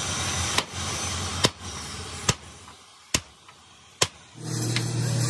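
Five sharp, evenly spaced hammer blows on metal, a little under a second apart. A steady machine hum starts near the end.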